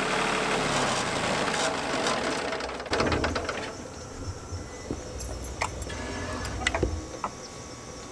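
Portable band sawmill running as its blade cuts through a maple log, a dense steady machine noise. About three seconds in the noise drops off with a cluster of knocks, and the mill runs on more quietly with scattered clicks and thumps.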